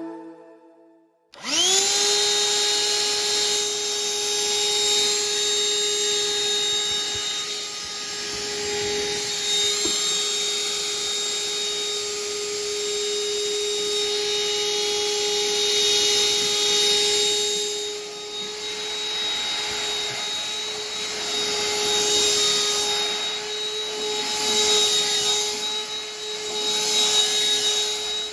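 A handheld vacuum (dust buster) switches on about a second in and spins up to a steady whine with a rush of air. It runs on as its nozzle is drawn over freshly sanded wood to lift the sanding dust, the air sound rising and falling as the nozzle moves. It cuts off at the very end.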